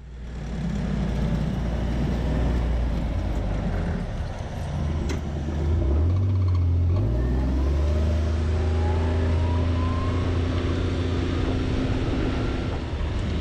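Loud vehicle engine running and accelerating. Its pitch dips and climbs again about six seconds in, then rises slowly.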